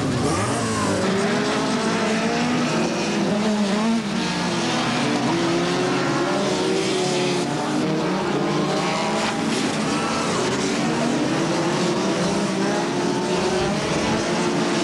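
Several BriSCA F2 stock car engines running hard as the pack races past, their notes overlapping and rising and falling as the cars accelerate and lift.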